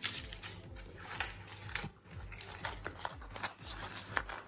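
Scissors snipping parchment (baking) paper around a tart tin, with faint paper rustling and scattered small clicks.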